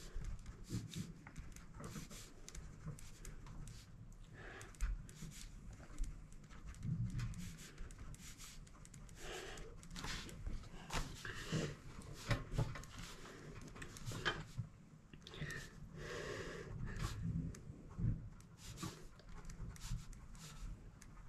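Pen writing quickly on workbook paper: a continual run of short scratching strokes and taps as answers are jotted down one after another.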